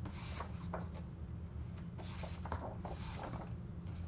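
Paper pages of a hardback book being handled and turned: soft, irregular rustles and rubs, over a steady low hum.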